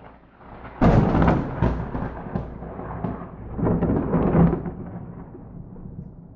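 Close thunderclap from a lightning strike, without rain: a sharp crack about a second in, crackling for a second or so, a second swell around four seconds in, then a rolling rumble that fades away.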